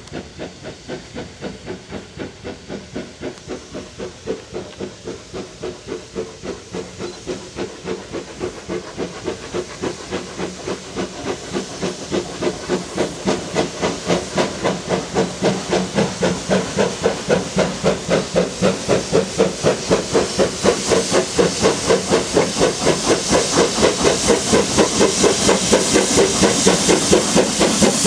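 Industrial saddle-tank steam locomotive hauling a train of wagons, its exhaust beats chuffing in a steady rhythm of about three a second over the hiss of steam, growing louder as the train approaches.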